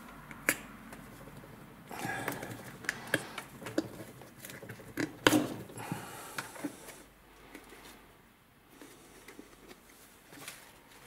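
Scattered clicks and knocks from a small metal tin and its plastic dispenser cap being handled with gloved hands on a wooden bench. The loudest knock comes about five seconds in.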